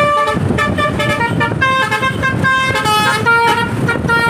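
Basuri telolet musical bus horn playing a fast tune: short horn notes, several pitches sounding together, changing every fraction of a second.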